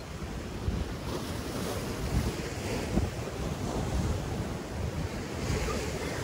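Wind buffeting the microphone with surf breaking and washing over the rocks of a granite jetty, the hiss of the wash swelling about a second in and again near the end.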